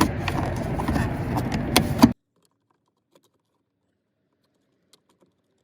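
Plastic door trim and handle parts being handled and pressed into place, rustling with a few sharp clicks, then the sound cuts off abruptly to dead silence about two seconds in.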